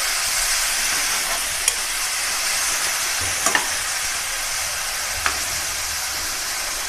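Chopped onions sizzling steadily in hot oil in a metal kadhai while being stirred, with the steel spoon clicking against the pan three times.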